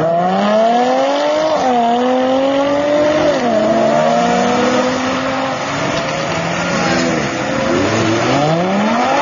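Sports cars (a Porsche 911, an Audi R8 and a Ferrari 458 Italia) accelerating away one after another, engines revving up with the pitch climbing and dropping back at each gear change. Near the end another car's engine starts low and rises as it pulls away.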